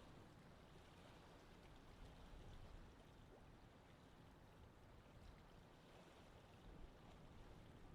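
Near silence: a faint, even outdoor ambience of low rumble and soft hiss.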